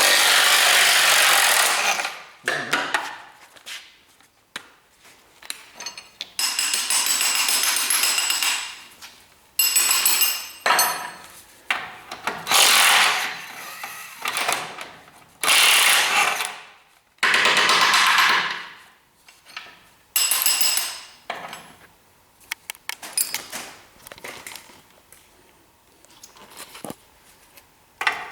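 Power tool run in repeated bursts of one to three seconds with short pauses, working on rusted front suspension fasteners.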